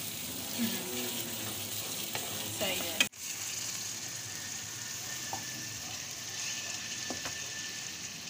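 Oil sizzling in a karahi as chopped onions fry and are stirred with a spatula; after a sharp click and brief dropout about three seconds in, raw chicken pieces sizzle in the onions and oil.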